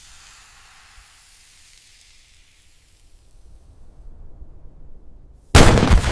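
Dynamite sound effect: a lit fuse hissing, fading as a low rumble builds, then a sudden loud explosion about five and a half seconds in, its rumble decaying.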